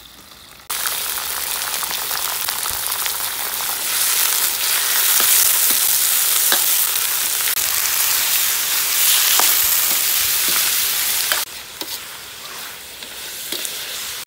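Chopped goose pieces sizzling loudly in hot oil in an iron wok, the sizzle starting abruptly about a second in as the meat goes in. A metal ladle clinks and scrapes against the wok as the goose is stir-fried. The sizzle drops off suddenly near the end.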